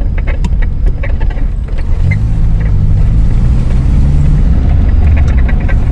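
Car engine running and road rumble heard from inside the moving car's cabin; a steady engine hum sets in about two seconds in.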